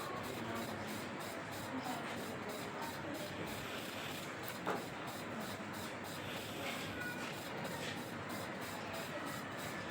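Steady background hiss with faint, indistinct sounds in it and a single sharp click a little under five seconds in.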